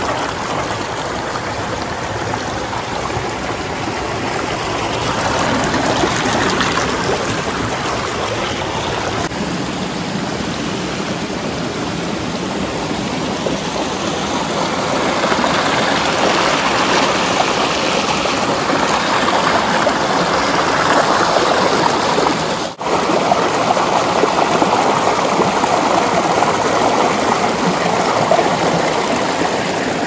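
Shallow rocky stream rushing and splashing over boulders and small cascades, close to the microphone. It cuts out for an instant about two-thirds of the way through.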